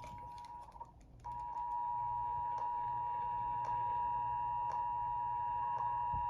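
Emergency Alert System attention signal: the steady two-tone alarm of a broadcast EAS alert, here opening the monthly test. It drops out for a moment about a second in, a breakup of the poor cable TV signal, then resumes steady, with faint clicks about once a second.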